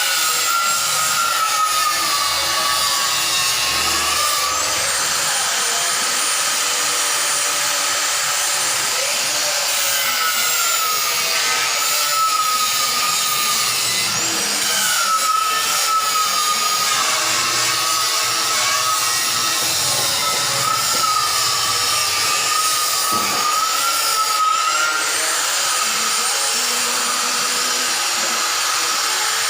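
A power tool or workshop machine running steadily under load, its pitch wavering slightly, with a high whine that comes in twice for several seconds.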